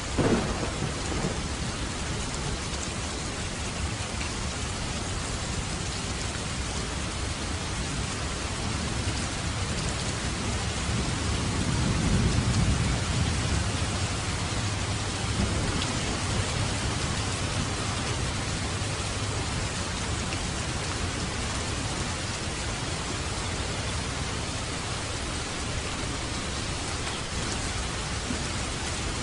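Steady heavy rain with thunder. A sharp thunderclap comes right at the start, and a low rumble rolls in and fades away about halfway through.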